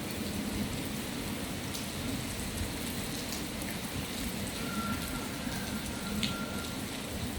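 Steady typhoon rain falling on surfaces, an even rushing hiss with scattered individual drops ticking.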